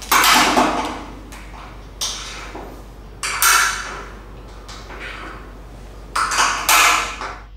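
Metal carabiners on climbing lanyards clinking and rattling against overhead fixed anchor eyes as they are unclipped and clipped from anchor to anchor: several bursts of clinking, each starting sharply and fading, the loudest near the start, about three seconds in and near the end.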